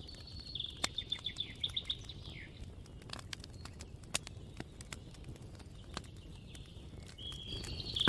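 Birds chirping, a rapid trill of calls in the first two seconds or so and another near the end, over the scattered sharp pops and crackles of a small wood campfire and a low rumble.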